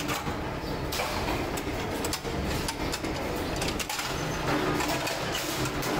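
Pedestal spot welder buzzing in short welds as it joins steel brackets to a motorcycle mudguard, with knocks and scrapes of the sheet-steel mudguard being handled between welds. The buzz drops out in the middle and comes back about four and a half seconds in.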